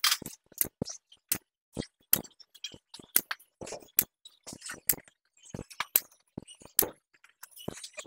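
Irregular sharp metallic clicks and clinks, about two or three a second, of a barbell and weight plates being handled on a gym floor.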